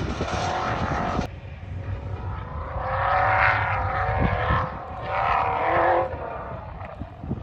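Vehicle engine running, cut off abruptly about a second in, followed by two rising-and-falling revving surges.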